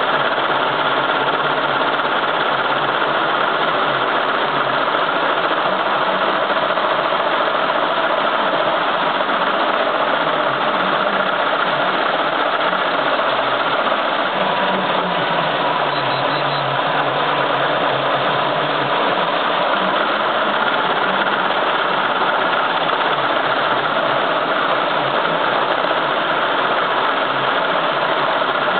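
Multi-needle commercial embroidery machine running steadily as it stitches lettering onto a cap in a cap frame: a continuous, even mechanical clatter of the needle head at work.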